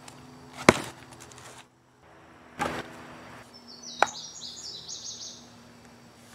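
A log is set down on a chopping stump with a sharp wooden knock, followed by a duller knock a couple of seconds later. Then a red 3D-printed plastic axe head taps once against the top of the log as it is lined up for the swing, and a bird chirps briefly just after.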